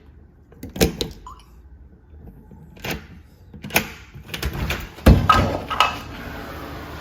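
Clicks and knocks of a Smonet smart lock's battery compartment being handled as its batteries are taken out and put back to reset the lock. There are a few separate sharp knocks, then a quicker run of them about four to six seconds in, the loudest about five seconds in.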